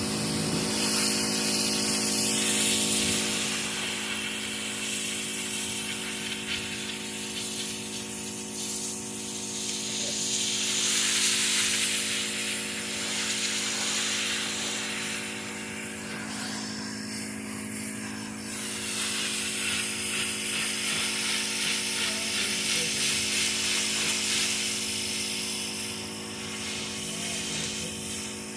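Pressure washer running with a steady machine hum, its water jet hissing and swelling louder and softer.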